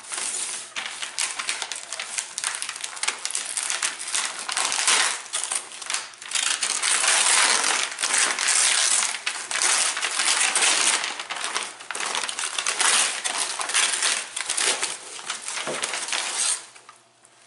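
Gift wrapping paper being crumpled and torn off a package by hand: a dense, crackling rustle in uneven spells that stops near the end.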